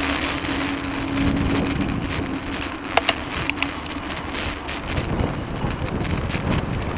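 Road noise from passing motor traffic mixed with wind rushing over a bicycle-mounted camera's microphone, with a low steady engine hum that fades about two seconds in and a few sharp clicks about three seconds in.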